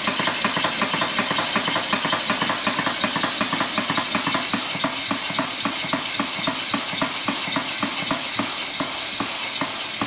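Roberts duplex steam pump running dry on compressed air: a steady hiss of exhaust air with a fast, even knocking as the pistons and valves bang back and forth, which happens because there is no water in the pump end.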